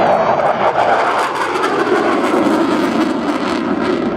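Jet noise from an RAF Tornado GR4's twin RB199 turbofans as the aircraft flies by, a loud steady rush whose pitch sinks lower over the last couple of seconds.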